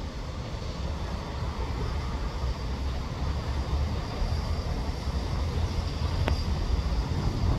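A steady, fluttering low rumble that slowly grows louder, with a faint high whine from about four seconds in and a single click about six seconds in.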